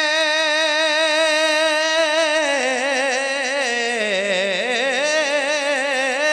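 A man singing a naat, holding one long high note with vibrato. About halfway through he slides down in a wavering melismatic run, then climbs back to the held note near the end.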